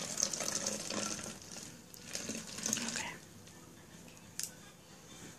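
Vinegar poured from a large bottle into a plastic drink bottle, a splashing trickle that tapers off about three seconds in. A single sharp click follows near the end.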